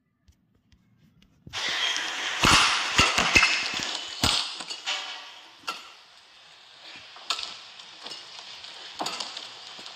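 After a second and a half of silence, badminton rackets striking a shuttlecock in a quick rally, several sharp hits close together, over arena crowd noise that rises as the point ends and then settles to a low hubbub.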